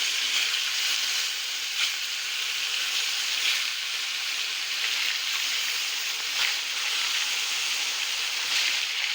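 Chicken rista (Kashmiri meatballs) frying in hot oil: a steady sizzling hiss, with a few brief light knocks.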